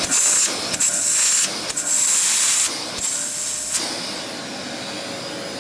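Aspiron 1200 W bagless canister vacuum cleaner running with a loud airy hiss that changes abruptly several times. About four seconds in it drops to a quieter, steadier running sound.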